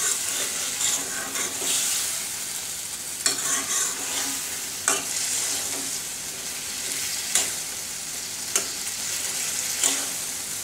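Fish pieces sizzling in oil and spice paste in a metal pan as a metal spatula stirs them, with a few sharp knocks of the spatula against the pan. This is the koshano stage, the fish being sautéed in the masala.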